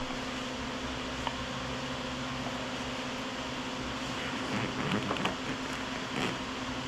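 Steady machine hum, like a fan running, with a few light clicks and knocks from a motorcycle backrest's bracket being worked into its mount.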